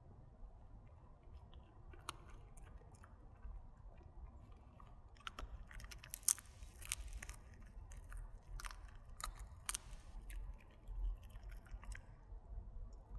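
A dog chewing dried duck bones, with sharp crunches and cracks. They come sparsely at first, then thick and fast from about five seconds in to about twelve, the loudest a little after six seconds.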